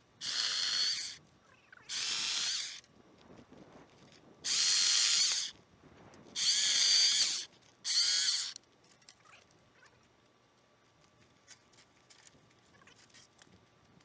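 Electric chainsaw run in five short bursts of about a second each, its trigger squeezed and released, then falling quiet about nine seconds in.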